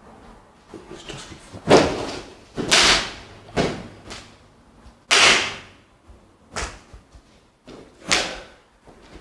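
Footsteps scuffing and crunching on a hard, littered floor: six loud, sharp steps roughly a second apart, the loudest about two and five seconds in.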